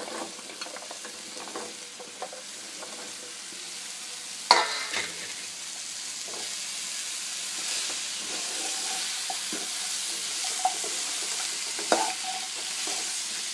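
Cubed pumpkin tipped by hand into a kadhai of hot oil and masala, then stirred with a wooden spatula: a steady sizzle that grows louder as the pieces fry, with scraping and small clicks. A sharp knock comes about four and a half seconds in and another near the end.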